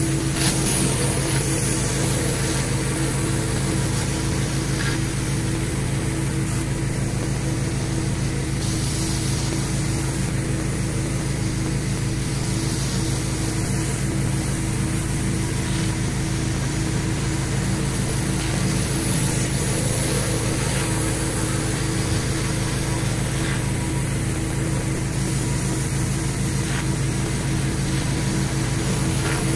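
A pressure washer running steadily, its engine and pump humming under the hiss of the water jets as a rotary surface cleaner is pushed over a concrete driveway.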